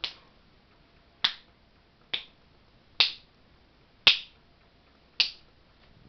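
Six sharp clicks, about one a second, each short with a brief bright ring.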